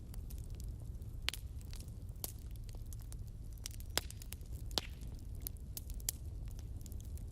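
Wood burning in a fireplace: irregular sharp crackles and pops of the logs over a steady low rumble of the flames.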